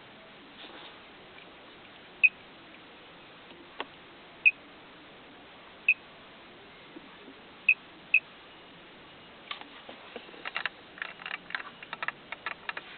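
Five short, high beeps at the same pitch, a second or two apart, from a car stereo head unit as its buttons are pressed. From about two-thirds of the way in they give way to a quick run of light clicks and knocks.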